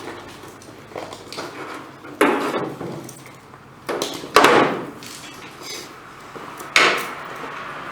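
Four sharp knocks or clanks, each with a short ringing tail: one about two seconds in, two close together near four seconds, and one near seven seconds.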